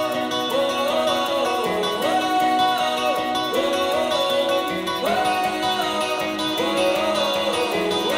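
Background music: a song with a melody of held notes over steady accompaniment.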